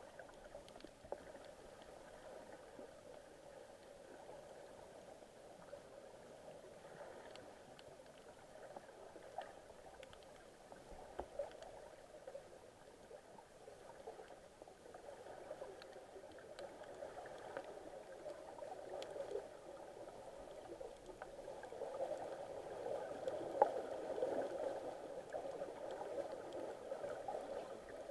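Faint, muffled underwater sound of sea water heard through a submerged camera: a steady hiss with scattered small clicks, growing louder over the last few seconds.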